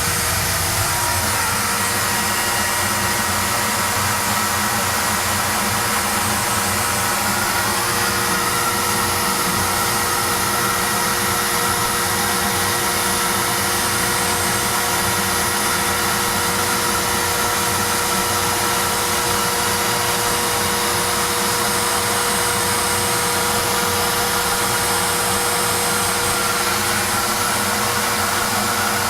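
Home-built CNC router milling a plywood seat: the router spindle whines steadily over the constant rush of the shop dust collector.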